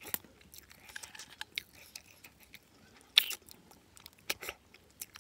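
Close-up mouth sounds of someone eating a handful of rice and boiled snails: irregular chewing with wet clicks and crunches, the loudest about three seconds in.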